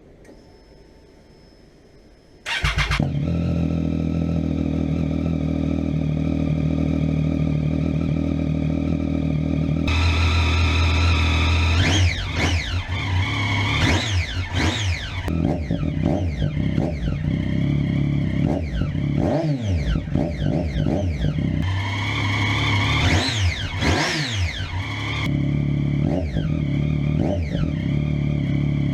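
Triumph Street Triple's 675 cc three-cylinder engine starting up about two and a half seconds in, then idling steadily in a shed. From about twelve seconds in it is revved in a series of throttle blips, several quick ones and then a couple of higher, longer revs, before settling back to idle near the end.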